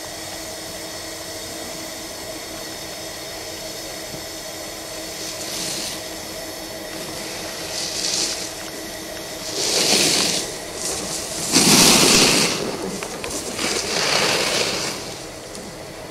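Edges scraping and sliding across packed snow in a series of turns: a hiss swells and fades about every two seconds, loudest about twelve seconds in, over a steady low hum.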